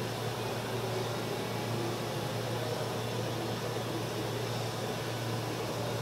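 Steady machine hum with an even hiss, unchanging throughout, like a fan or air-handling unit running.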